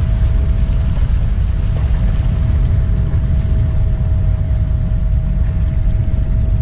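Waves washing over breakwater rocks under a steady low rumble of wind on the microphone, with a faint steady tone throughout.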